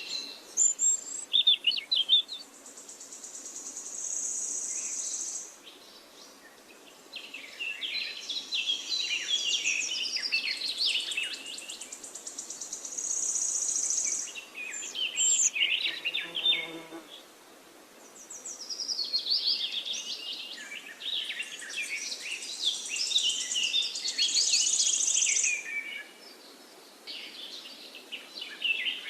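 Birds chirping and singing in repeated bursts of quick high notes, with long steady high trills and short lulls between phrases.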